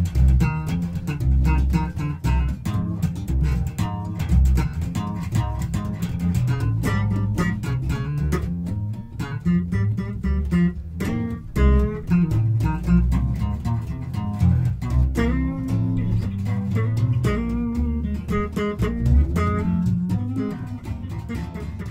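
Two electric bass guitars played together, with plucked low notes under a line of higher notes.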